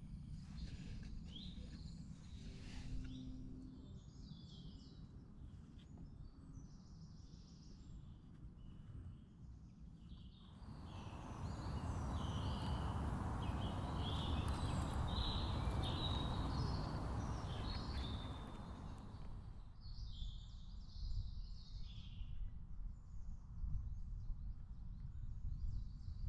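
Woodland ambience: songbirds chirping throughout over a low rumble. From about ten seconds in to about nineteen seconds in, a steady rushing noise fills in underneath.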